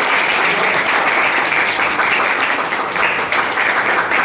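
A group of people clapping together: steady, dense applause.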